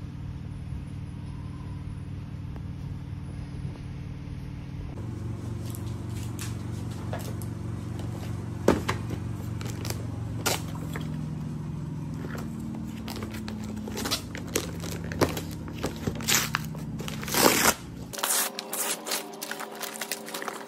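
Gift wrapping paper being handled and ripped open, with sharp crackling and tearing. It begins about five seconds in and gets busier near the end, over a steady low hum that cuts off near the end.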